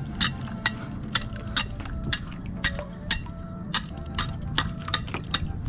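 A hand scraper raking barnacles on a concrete bridge piling: a rapid string of sharp scraping clicks, about three a second.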